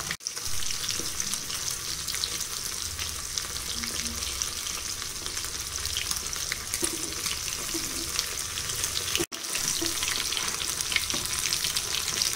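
Rava-coated sardines deep-frying in hot rice bran oil: a steady crackling sizzle from the fish that are still frying on their first side. The sound cuts out for an instant twice, near the start and about three-quarters through.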